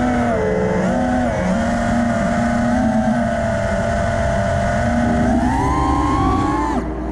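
Four iFlight XING-E 2207 brushless motors and propellers of a 5-inch FPV freestyle quadcopter whining, the pitch following the throttle. It holds fairly steady, rises about a second before the end as the quad climbs, then drops sharply as the throttle is cut, with wind rumble underneath.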